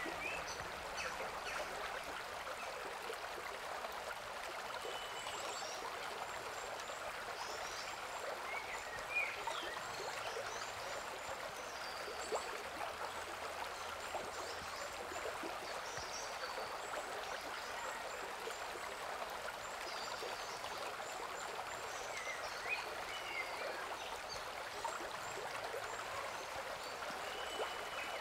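Shallow rocky stream running steadily, water babbling and splashing over and around stones, with a few brief louder splashes. A few short high chirps sound now and then.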